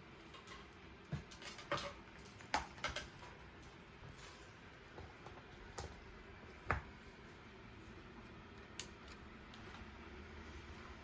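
Scattered light plastic clicks and knocks, about seven in all and spaced irregularly, from the parts of an opened TEAC CD-cassette deck being handled.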